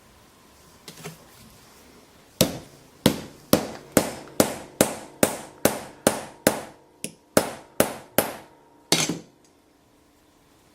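A hammer striking about fifteen sharp, even blows, roughly two a second, after a couple of faint knocks, then stopping.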